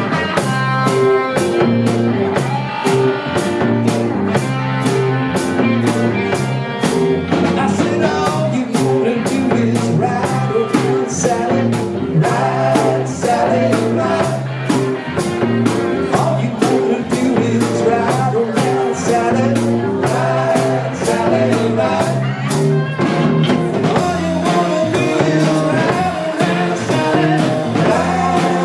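Live rock and roll band playing, with a steady drum beat and a repeating bass line.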